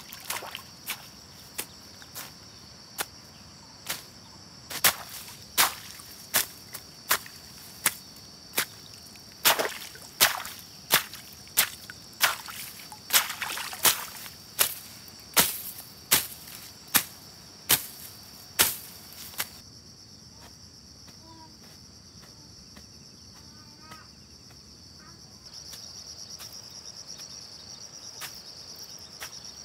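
A quick run of sharp blows, about one every 0.7 seconds, that stops about 20 seconds in, over a steady chorus of crickets.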